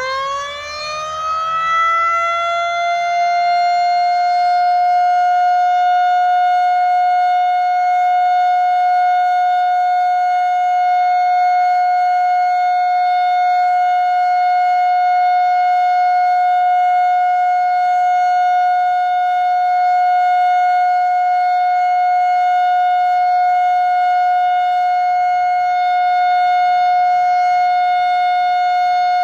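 Darley "Model 2" tornado warning siren sounding for a test: its rising wind-up whine levels off about three seconds in, then holds one steady, loud wail.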